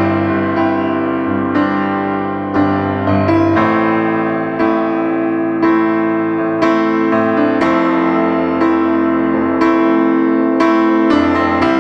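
Background piano music: slow, soft chords struck about once a second, each ringing on into the next.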